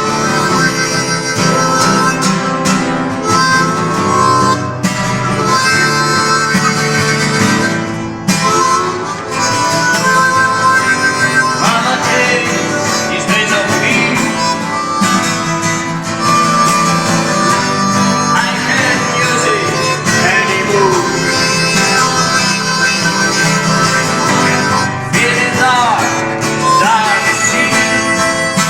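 Music: a blues-style tune with harmonica over guitar, the harmonica bending notes up and down in places.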